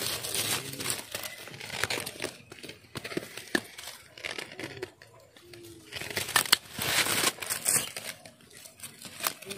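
Rustling and crackling of leaves and brush being handled, in irregular bursts with scattered sharp clicks, loudest about six to seven seconds in.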